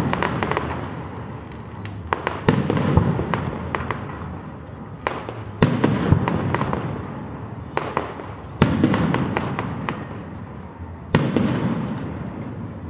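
Aerial fireworks shells bursting, with about half a dozen sharp bangs a few seconds apart. Each bang is followed by a fading rumble and crackle, and the bangs die away near the end.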